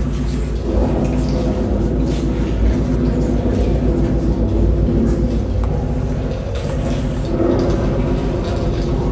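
A loud, steady low rumble with a held drone over it, from the soundtrack of a projected video artwork.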